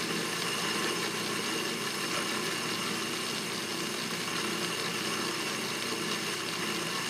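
Atlas metal lathe running at a steady speed, its motor and belt drive giving a steady hum with a thin whine over it, while a boring bar cuts inside the spinning workpiece.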